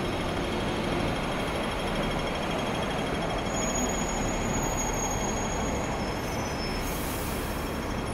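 Hong Kong double-decker electric tram running on its rails, a steady rumble heard from on board. A faint high squeal comes in around the middle, and a brief hiss sounds near the end.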